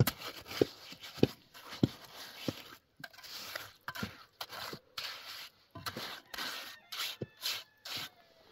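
A trowel and hand working wet sand-and-cement mortar packed around the base of a wooden post: a run of short scrapes, with a few sharp ringing taps about every half second in the first couple of seconds.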